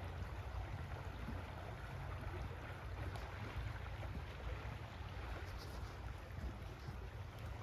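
Steady rushing of river water, with a low rumble of wind on the microphone.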